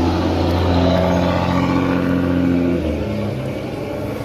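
Cummins ISB 6.7L inline-six turbodiesel of a Thomas Saf-T-Liner EFX bus running through an open, free-flowing exhaust, with a steady note that drops lower about three seconds in.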